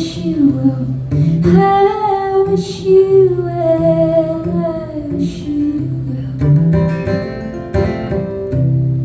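Live band playing a song's closing passage: guitar with low bass notes under a woman's wordless singing, her voice gliding between notes.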